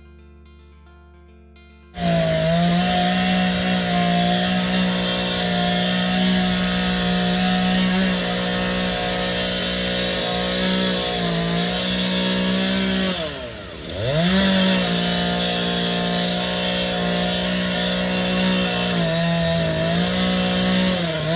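Stihl two-stroke chainsaw running at full throttle while cutting wood, its pitch sagging a little under load at times. About halfway through, the engine drops almost to idle and revs straight back up. It starts and stops abruptly.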